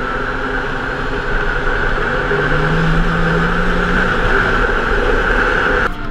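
Side-by-side UTV's engine running steadily as it drives along a dirt trail, heard from the cab; the sound changes abruptly near the end.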